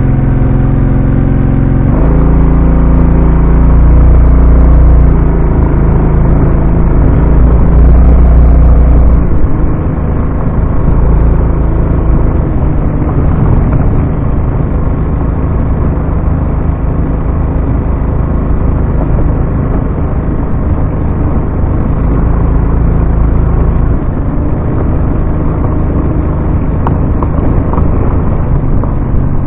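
Motorcycle engine running while riding along, picked up by a camera mounted on the bike; its note shifts a few times, about two seconds in, around nine seconds and near the end.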